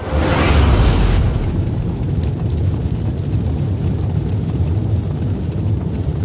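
Logo intro sound effect: a loud rushing burst in the first second that settles into a steady deep rumble.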